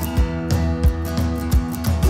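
Background instrumental music with plucked strings and a steady beat.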